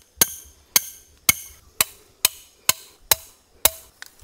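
Hammer striking a twisted steel trap stake, driving it into the ground: eight sharp, ringing metal blows at about two a second.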